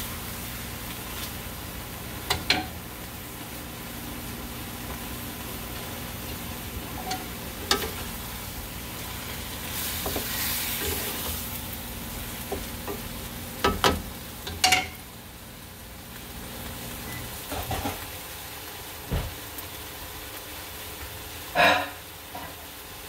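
Wooden spatula stirring ground pork, patola squash and miswa noodles in a hot pan: a steady sizzle, with scrapes and knocks of the spatula against the pan now and then. The sizzle swells for a couple of seconds near the middle, and a louder knock comes near the end as the spatula is put down.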